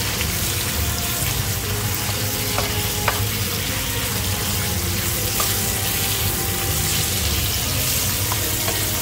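Tomato paste, bell peppers and sliced garlic sizzling steadily in an enameled pan while a metal spoon stirs them, with a few short scrapes of the spoon against the pan. The tomato paste is being browned to cook out its raw taste.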